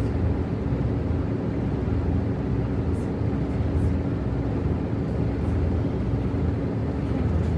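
Cabin noise of a Scania K94UB city bus under way: steady engine drone and road rumble, with a held whine that dips slightly in pitch near the end.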